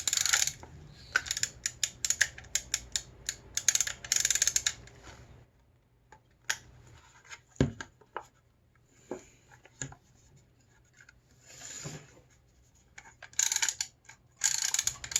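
Rustling and scraping of roll film against a camera body as it is handled and threaded toward the take-up spool, with many small clicks. The sound comes in two stretches, one at the start and one near the end, with a quieter gap between them and a single low thump in the middle.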